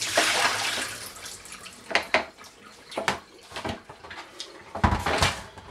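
Rinse water poured out of a plastic brewing bucket, a splashing rush that fades within about a second, followed by several hollow knocks and clatters as the plastic bucket is handled, the loudest pair near the end.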